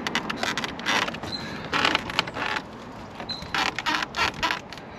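Plastic suspension arms and hinge pins of a Traxxas X-Maxx rattling and clicking in a quick string of small knocks as they are wiggled by hand, checking for play in the sloppy upper arm.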